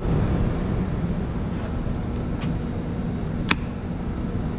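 Steady low mechanical hum and rumble, with two brief sharp clicks about two and a half and three and a half seconds in.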